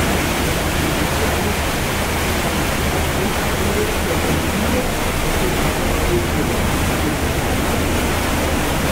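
Steady rush of churning water from a motor barge's propeller wash in a lock chamber, with a low engine drone beneath it.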